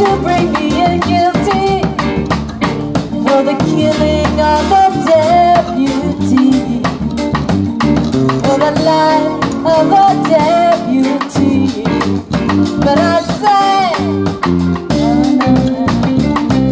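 Live reggae band playing: a woman singing lead into a microphone over drum kit, bass line and keyboard.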